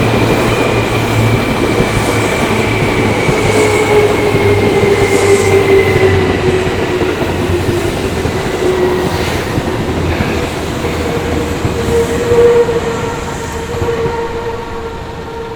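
Seibu Haijima Line electric train running past over the level crossing, wheels clattering on the rails. Steady high tones slide slowly down in pitch, and the sound starts to fade near the end as the train moves off.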